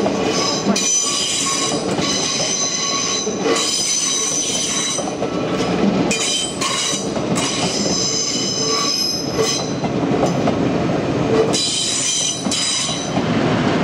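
NS double-deck electric passenger train rolling past, its wheels squealing on the rails in repeated high-pitched bouts over a steady rolling rumble.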